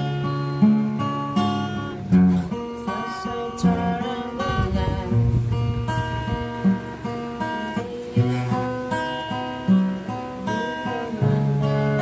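Steel-string acoustic guitar strummed through a changing chord progression, with a man's voice singing along in places.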